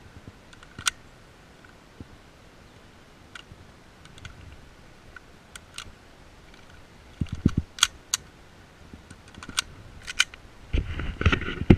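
Sharp metallic clicks of a Tokyo Marui Hi-Capa gas-blowback airsoft pistol and its magazine being handled during a reload, several single clicks with a louder pair about eight seconds in. Low thumps and rustling of the player's movement and gear about seven seconds in and again near the end.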